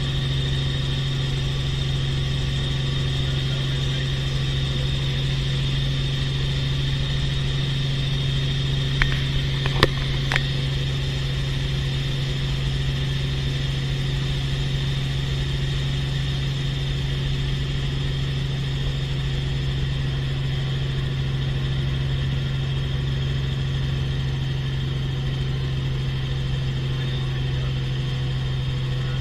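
Helicopter cabin noise in flight: a steady engine and rotor drone with a faint high whine above it. A few short clicks come about nine to ten seconds in.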